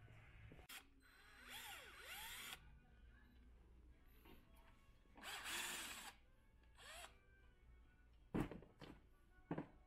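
Cordless drill driving screws into a metal leg bracket: two runs of about a second each, the motor's pitch sliding up and down, then a brief third run. Two sharp knocks near the end are the loudest sounds.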